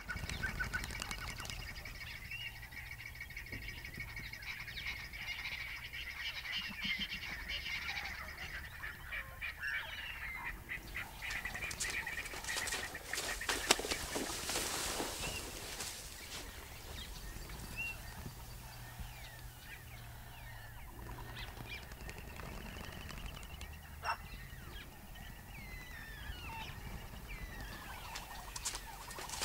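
Bush ambience of birds calling, with many short chirps and whistles. About halfway through comes a louder, harsher stretch of animal calls and noise, and a single sharp sound comes later.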